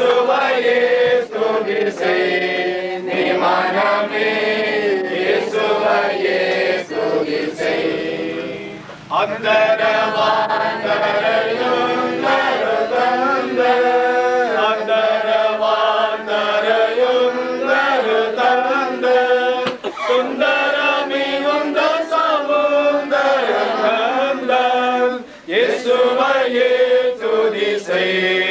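A group of voices singing a hymn together, with brief breaks between lines about nine seconds in and again near the end.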